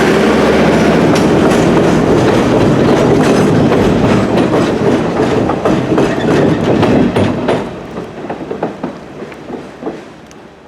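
Train wheels clicking over rail joints as the excursion train's cars pass, with a steady rumble at first that gives way to the clicks; the sound fades away over the last few seconds as the train moves off.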